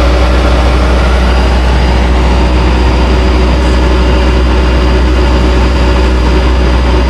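Bobcat S185 skid steer's diesel engine running loud and steady as the machine moves on its newly shortened over-the-tire rubber tracks, which are being test-fitted.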